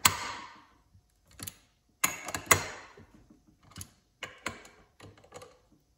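Hand wrench and ratchet on the ring gear bolts of an Arctic Cat Team drive clutch: a series of irregular, sharp metallic clicks and clinks, each with a short ring, the loudest at the start and about two and a half seconds in.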